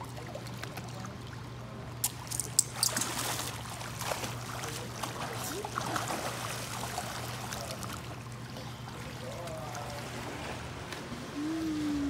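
Swimming-pool water splashing and lapping as children swim, busiest in the first half, with a few sharp clicks about two seconds in. A steady low hum sits underneath.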